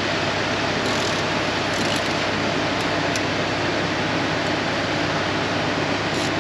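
Steady rushing workshop background noise with a low hum underneath, even throughout, and a few faint short clicks about one, two and three seconds in.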